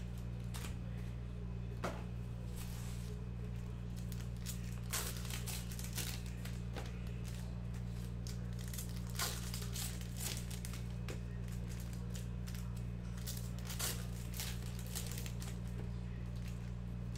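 Trading-card packs being torn open and their wrappers crinkled while the cards are handled. Scattered short crackles and rustles come at irregular intervals over a steady low hum.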